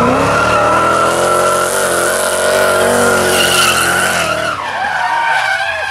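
LS2 V8 of a BMW E46 M3 drift car held at high revs while the rear tyres skid and squeal through a smoky drift. About four and a half seconds in, the engine note drops, then rises and falls in quick blips of the throttle.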